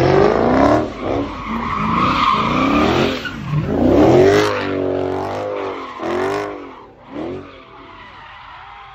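A car's engine revving hard, its pitch rising and falling again and again, while the spinning wheels skid and spray dirt and gravel in a burnout. The sound fades near the end as the car slides away.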